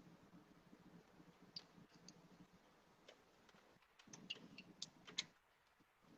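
Near silence with a faint low hum, broken by a few faint, sharp clicks, mostly clustered about four to five seconds in.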